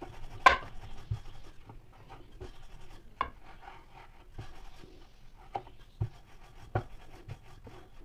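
Wooden rolling pin rolling dough on a wooden board: soft rubbing strokes broken by scattered knocks of the pin against the board, the loudest about half a second in.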